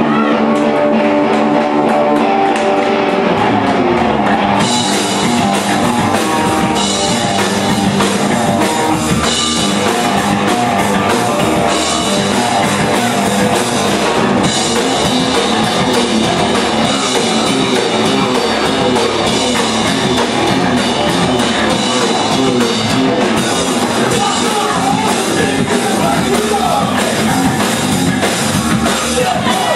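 Rock song with drum kit, guitar and singing; it opens with about four seconds of held chords before the drums come in.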